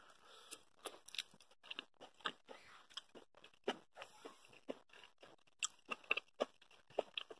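A person chewing a mouthful of zucchini noodles, with faint, irregular crunches and wet mouth clicks.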